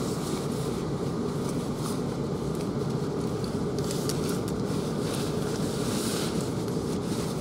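Steady hum and rumble inside the carriage of a South Western Railway Class 444 electric multiple unit standing at the platform, its onboard equipment and ventilation running, with a few faint clicks around the middle.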